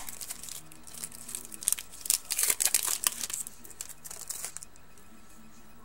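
Trading card pack wrapper being torn open and crinkled by hand, a run of irregular crackles that stops about four and a half seconds in.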